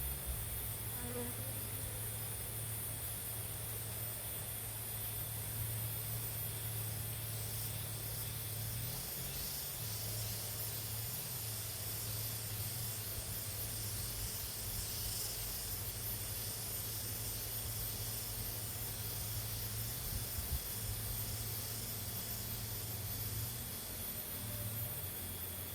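Crop sprayer's pump motor humming steadily, with a constant hiss of spray.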